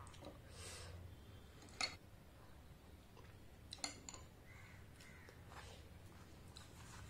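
Faint eating sounds: a metal spoon clinks against a glass bowl about two seconds in, then a puffed luchi tears by hand with a few soft crackling clicks.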